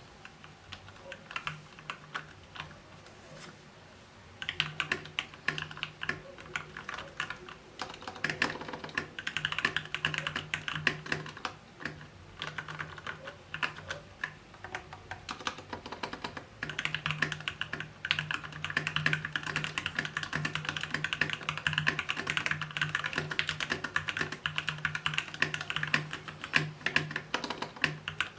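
Typing on an XVX M61 60% mechanical keyboard with pre-lubed Gateron Brown tactile switches: a quick, fairly quiet clatter of keystrokes with a slight hollow echo from the case. It starts as light, sparse taps and becomes fast, continuous typing about four seconds in.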